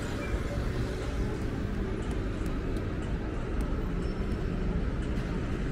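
Steady city street ambience: a low rumble of traffic at an intersection, with a few faint light ticks in the middle.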